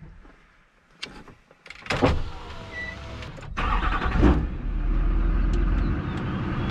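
LLY Duramax 6.6-litre turbodiesel V8 in an 05 Chevy Silverado being started from inside the cab: a few clicks as the key turns, the starter cranks for under two seconds, and the engine catches about three and a half seconds in, flares briefly and settles into a steady idle.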